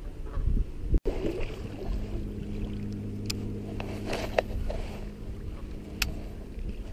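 A steady low motor hum that sets in about two seconds in and fades near the end, with a few sharp clicks over it.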